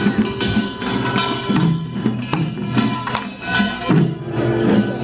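Korean pungmul folk percussion band playing: dense, rapid strikes of gongs and drums over held ringing tones.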